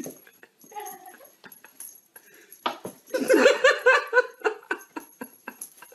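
A person laughing in a quick run of giggles, starting a little under three seconds in and lasting about two seconds. Light scattered ticks and taps come before and around it.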